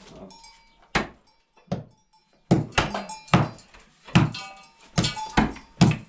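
Pickaxe and hammer striking rubble and plaster at the foot of an earthen wall: about ten sharp knocks at uneven intervals, beginning about a second in, some with a brief metallic ring.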